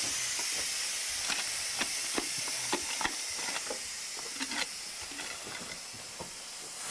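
Metal hand tool striking and chipping at a rock face: a run of short, sharp strikes, about two a second, thinning out in the second half, over a steady hiss.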